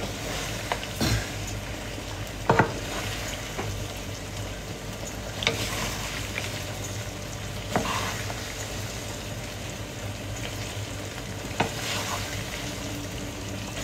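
Tube pasta in a cream sauce sizzling in a wide pan as it is stirred with a wooden spatula and a spoon, with a few short knocks of the utensils against the pan.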